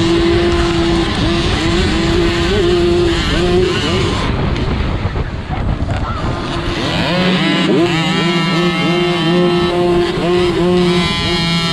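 Dirt bike engine running hard, heard from on the bike, its pitch dipping and climbing with throttle and gear changes; about seven seconds in the revs climb sharply and then hold high.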